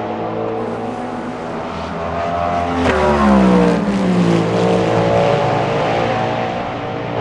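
Cadillac V-Series.R LMDh prototype's 5.5-litre V8 racing engine passing at speed: the engine note rises to its loudest about three seconds in, then drops in pitch as the car goes by and fades.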